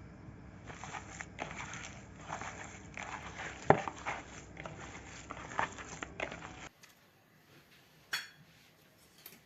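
Kitchen handling sounds of cooking preparation: irregular scrapes, clicks and crinkling, with one sharp knock a little before halfway. About two-thirds through the sound changes abruptly to near-quiet with a single click.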